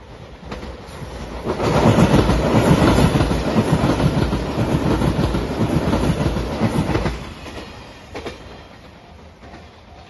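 JR Shikoku 8000-series electric limited express train passing close at speed: rumble and clickety-clack of wheels over the rail joints, swelling from about a second and a half in and fading away after about seven seconds. Near the end a level-crossing bell rings faintly in even strokes.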